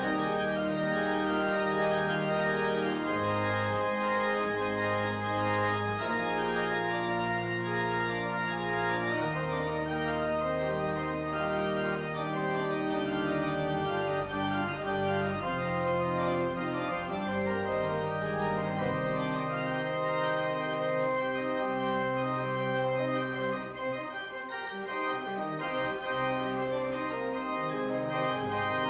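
Church organ playing sustained chords over held bass notes that change every few seconds.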